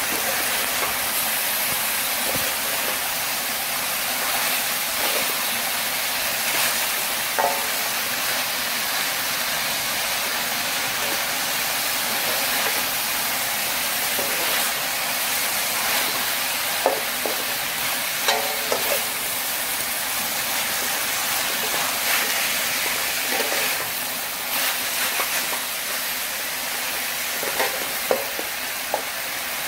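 Water spinach and chicken livers sizzling steadily in an aluminium wok, with a spatula stirring and scraping against the pan now and then, several times near the end.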